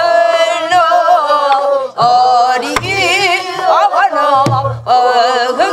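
Voices singing a Namdo (southwestern Korean) folk song with wide, heavily wavering vibrato. Deep strokes on buk barrel drums come about two-thirds of the way in and again near the end.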